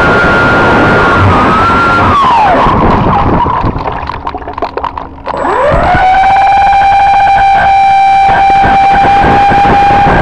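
Motors and propellers of a radio-controlled model Canadair CL-415 flying boat whining at a steady pitch. About two seconds in the throttle is cut and the whine falls away, leaving water crackling against the hull. About five and a half seconds in the throttle opens again and the whine sweeps up and holds steady as the model speeds across the water.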